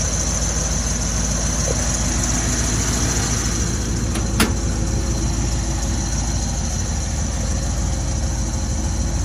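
1955 Chevrolet Bel Air's engine idling steadily. A single sharp click sounds about four and a half seconds in.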